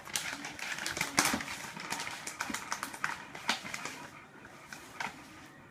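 Dog chewing and tearing at a toy: rapid, irregular crackling clicks that thin out after about four seconds.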